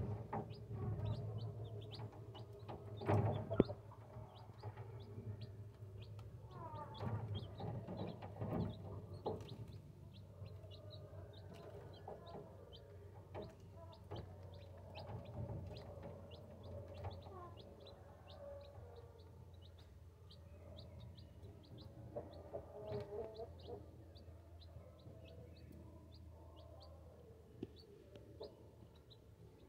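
Two-day-old chicks peeping continuously, a rapid stream of short high cheeps, with a few lower calls mixed in and a low steady hum underneath.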